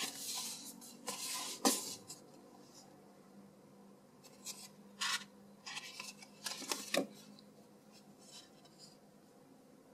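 Paper rustling as a glossy sticker sheet is slid out of a paper envelope and handled, in short swishes with two sharp crackles, one about a second and a half in and one near seven seconds.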